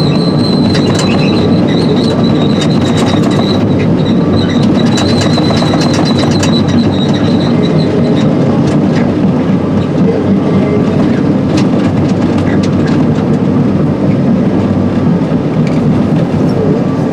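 Excavator travelling on its steel tracks, heard inside the cab: a steady diesel engine and the tracks clanking and clicking. A high steady whine runs through the first half and stops about eight seconds in.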